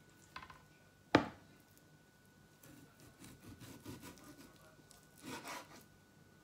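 Chef's knife cutting raw beef on a wooden cutting board: one sharp knock of the blade on the board about a second in, then softer taps and scrapes of cutting, with a longer scraping rasp near the end.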